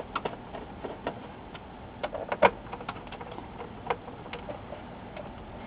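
Hand screwdriver turning screws into the plastic back cover of an LCD monitor: scattered, irregular light clicks and ticks, with a few louder clicks near the middle.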